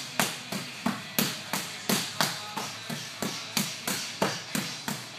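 Boxing gloves striking focus mitts in a steady run of sharp slaps, about three punches a second.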